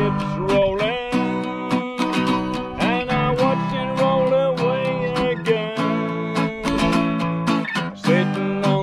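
Acoustic guitar strummed in a steady rhythm, with a harmonica playing a held, bending melody over the chords.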